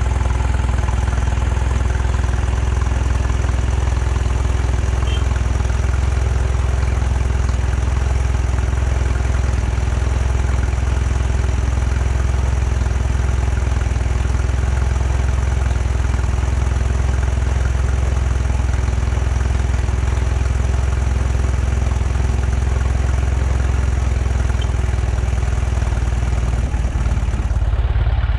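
ATV engine idling steadily, a loud, even hum that holds the same pitch throughout with no revving.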